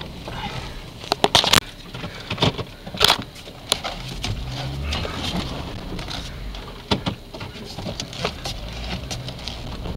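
Jeep crawling slowly off-road in four-wheel drive: a low steady engine rumble under frequent irregular knocks, clicks and rattles as the vehicle lurches over rough ground, with a few sharp louder knocks.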